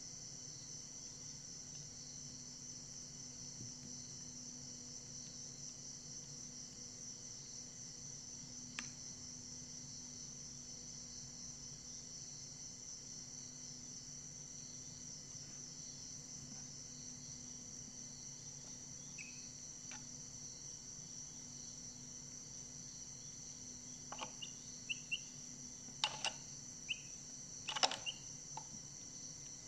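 A continuous high insect chorus over a faint low hum. Several sharp ticks and a few faint short peeps from the chicks come in the last few seconds.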